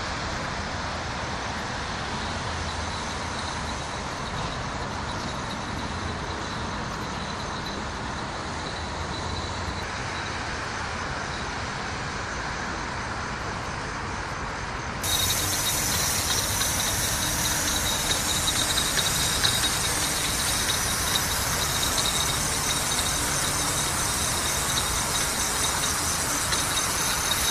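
Steady hum of road traffic by the river at night. About halfway through it turns suddenly louder and brighter, with a faint high pulsing tone over it.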